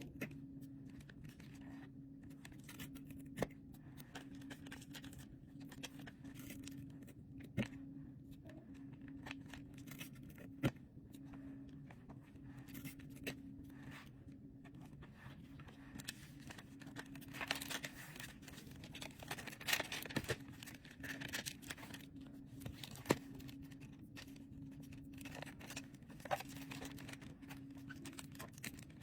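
Mylar book-jacket cover crinkling and rustling as it is handled, with scattered sharp clicks and a denser stretch of crackling a little past the middle. A steady low hum runs underneath.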